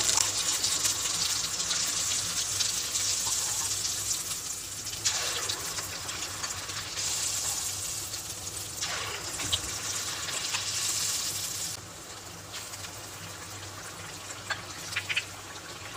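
Paniyaram batter deep-frying in hot oil in a kadai: a steady sizzle and crackle that surges twice as more batter is dropped in, then settles lower about twelve seconds in. A few light clicks of a metal ladle against the pan come near the end.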